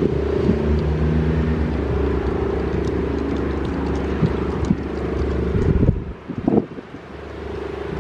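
Federal Signal STL-10 outdoor warning siren sounding its steady full alert tone. The tone stops about six seconds in, leaving wind gusting on the microphone.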